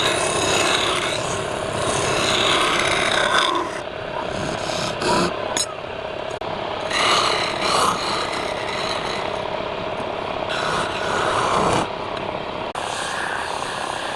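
Wood lathe running with the spinning workpiece being worked, a rasping scrape over a steady hum that swells and eases in uneven passes.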